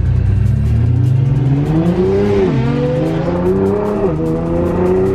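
Car engine accelerating hard through the gears, its pitch climbing, dropping sharply at a shift about two and a half seconds in and again about a second and a half later, then climbing once more.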